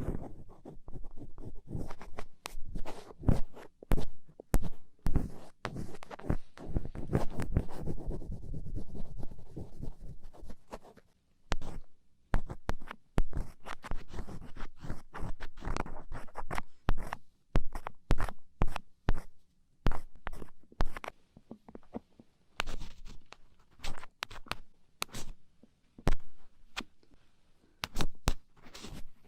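Close-up scraping and clicking of an ear pick working wax out of an ear canal. Dense, continuous scratching for about the first ten seconds, then, after a short pause, separate sharp clicks and scrapes.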